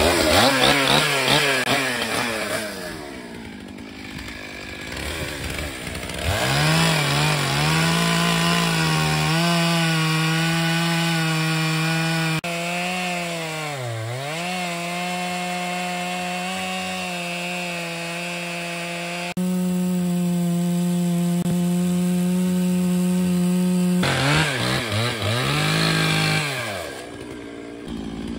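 Stihl MS 881 chainsaw, a big two-stroke, revving and cutting into the end of an old oak log. Its pitch swings up and down at first, then holds high and steady in the cut, with one sharp dip in speed about halfway through as the saw bogs under load. Near the end there are more revs before it drops back low.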